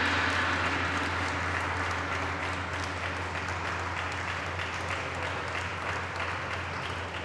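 A small group applauding steadily, with the ringing of a struck ceremonial gong fading out over the first second or so.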